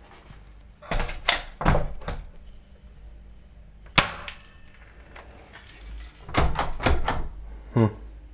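Interior door with a glass panel being rattled at its handle, knocking against the frame in several clattering bursts. There is a single sharp click about four seconds in and a short rattling creak near the end.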